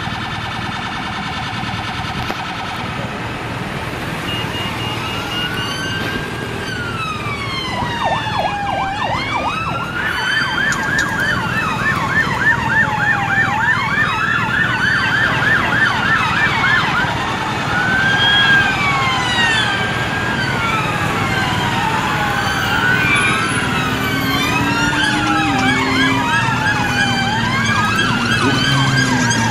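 Several police sirens sounding at once, their wails sweeping up and down and overlapping, with a fast yelp for a few seconds in the middle. At the start a steady pulsing warning tone is heard before the wails come in.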